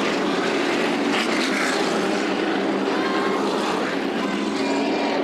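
NASCAR México stock cars' V8 engines running at race speed, several engines blending into one steady sound whose pitch drifts slightly.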